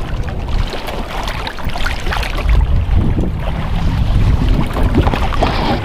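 Wind buffeting the microphone, a heavy low rumble with noisy rustle above it, getting louder about two seconds in.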